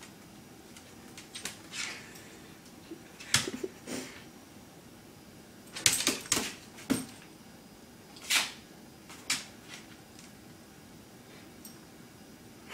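Dogs' claws clicking and scraping on a tile floor in short scattered bursts as they scrabble and pounce, with a flurry of them about halfway through.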